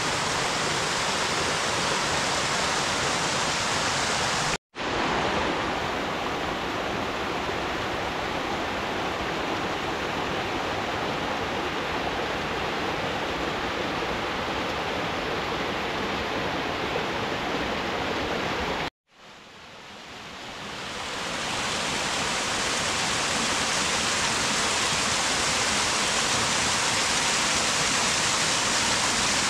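Small mountain stream rushing steadily down rocky cascades and over a little waterfall. The sound cuts out briefly about five seconds in, and again about two-thirds of the way through, fading back in over a couple of seconds.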